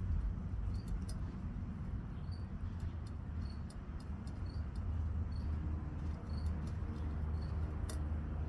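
A stray kitten eating, making small irregular clicks and short faint high squeaks a few times a second, over a steady low rumble.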